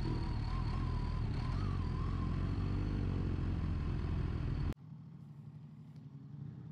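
Kawasaki Ninja H2 SX SE's supercharged inline-four motorcycle engine running steadily at low speed, with a faint wavering whine over it. The sound cuts off suddenly about four and a half seconds in, leaving a much quieter low engine hum.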